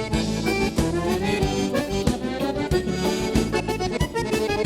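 Instrumental break of southern Brazilian gaúcho dance music: an accordion (gaita) plays the melody over a band keeping a steady beat.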